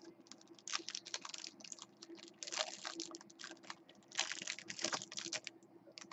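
A stack of football trading cards being handled close up: cards sliding, flicking and tapping against each other in irregular clusters of soft clicks and rustles.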